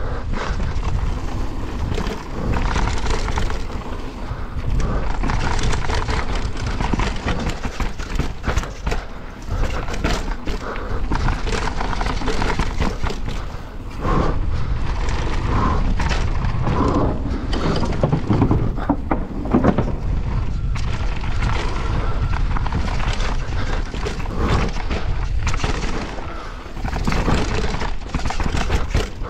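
Mountain bike descending a dirt trail at speed: steady wind rumble on the microphone over the tyres rolling on dirt, with the bike rattling and thudding over bumps and roots.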